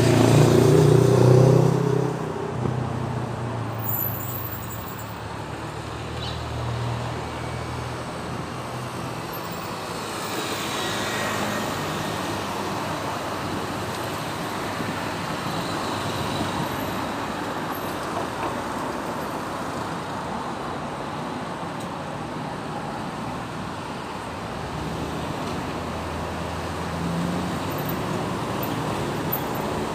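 City road traffic: a steady flow of cars and heavier vehicles. A loud engine close by in the first two seconds, then an even hum of engines and tyres.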